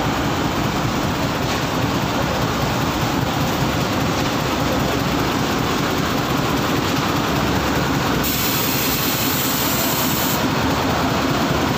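Heavy diesel machinery running steadily, a continuous rumble with no letup. A hiss joins it for about two seconds, starting about eight seconds in.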